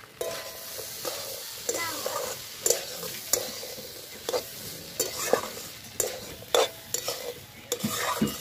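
Metal spatula stirring and scraping a potato, pea and chana dal curry in a metal kadai, with irregular clinks against the pan over a steady frying sizzle; the clinks come quicker near the end.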